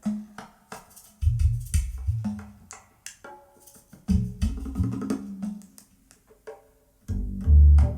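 Instrumental opening of a song with sparse percussion, knocking hits and deep bass thumps, played back on a Devialet Phantom speaker. The heaviest bass comes in the last second.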